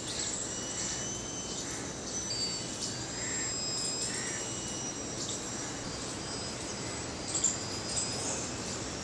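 Faint high whine of a distant electric RC plane motor, its pitch stepping up and down as the throttle changes, over a steady outdoor background hiss, with one brief louder burst about seven seconds in.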